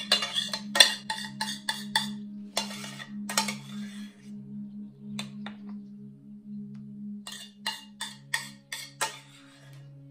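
Metal spoon scraping and clinking against a metal mixing bowl and a metal acorn-shaped jelly mould as a thick mixture is spooned into the cups: runs of quick clicks and scrapes for the first few seconds, a couple near the middle, and another run near the end. Background music holds two steady low tones underneath.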